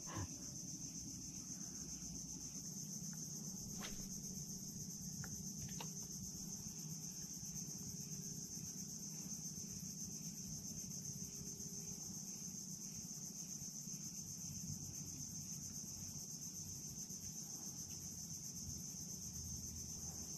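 Steady, high-pitched chorus of insects, with two faint clicks about four and six seconds in.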